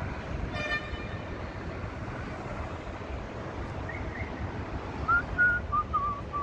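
City traffic noise heard from a high rooftop, with wind on the microphone. A short car horn toot comes about half a second in, and a few short high chirps follow later, a run of them near the end.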